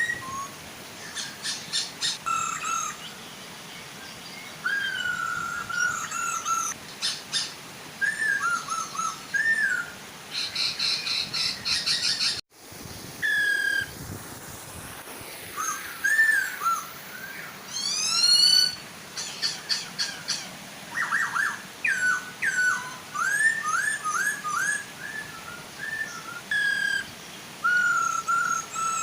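Masked laughingthrushes (poksay hongkong), male and female, calling over and over with loud whistled notes, chatter and quick runs of rising and falling notes, over the steady soft hiss of a waterfall. The sound cuts out for a moment about halfway through.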